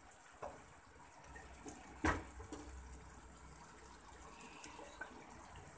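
Beef and vegetables in a thin black pepper sauce simmering and bubbling steadily in a frying pan, with one sharp knock of a metal ladle against the pan about two seconds in.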